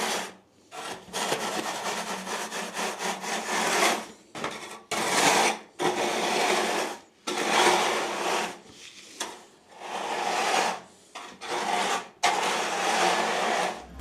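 A hand tool scraping over freshly poured concrete to smooth the surface, in about nine rasping strokes of a second or so each with short pauses between them.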